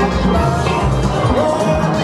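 Steelband music: steel pans playing a tune over a low accompaniment.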